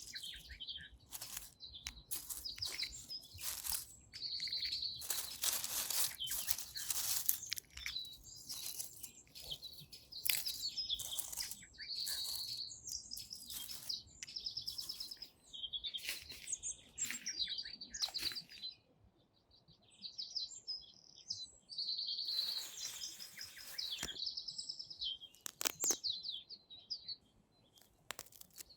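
Small songbirds chirping and trilling in quick high calls, over and over, with a brief lull about two-thirds of the way through.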